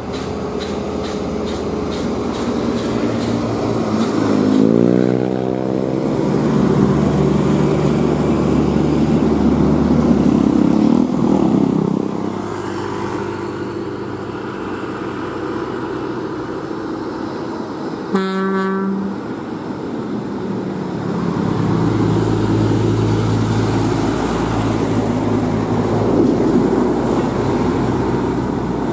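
Scania P380 truck's diesel engine pulling a heavy crane load, revving up with a rising pitch about four seconds in and then running steadily under load. A short air-horn blast sounds about two-thirds of the way through, and a second heavy truck's engine follows with a deeper drone.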